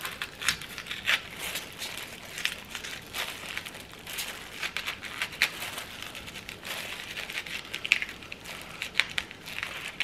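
Spoon scraping the hard core and seeds out of a halved Asian pear in irregular short scrapes, with the crinkle of disposable plastic gloves.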